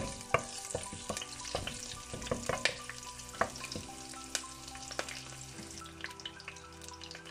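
Curry leaves frying in hot coconut oil, crackling and spitting with frequent sharp pops. A wooden spatula stirs them around the pan near the start.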